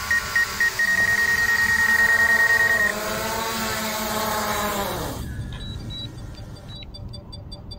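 Quadcopter drone landing: its propellers whine steadily under rapid high-pitched beeping. About three seconds in the whine drops in pitch as the motors spin down, and it stops near five seconds in, leaving faint regular high beeps.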